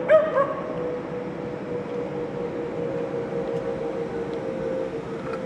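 Chime whistle of LNER A4 steam locomotive 60009 Union of South Africa, held as a long steady note, with a louder blast that bends in pitch just after the start. The approaching train's running noise is heard underneath.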